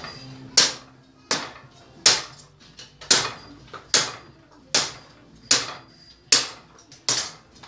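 A hand-forged 5160 steel ring-pommel sword chopping repeatedly into a wooden post: about nine sharp blows, roughly one every three-quarters of a second, each with a short high-pitched tail.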